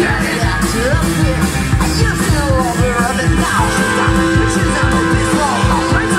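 Live rock'n'roll band playing loudly, with a steady drum beat and a keyboard in the mix.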